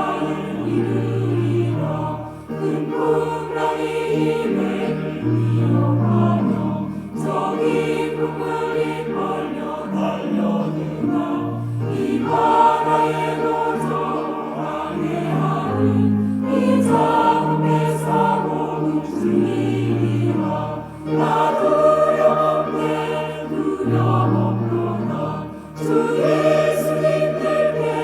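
Church choir singing a hymn anthem in sustained phrases, with short breaths between phrases every few seconds.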